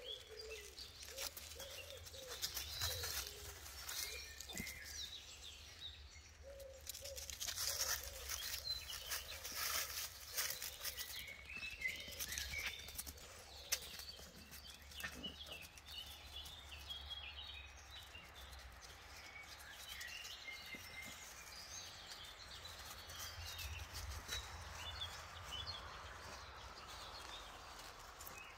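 Outdoor garden ambience: small birds chirping and calling throughout, with low cooing notes near the start. A stretch of rustling and clicks runs from about six to twelve seconds in, over a faint steady low rumble.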